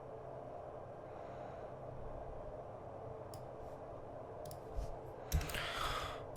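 A few sharp computer mouse clicks over a steady low hum, with a short breathy sound near the end.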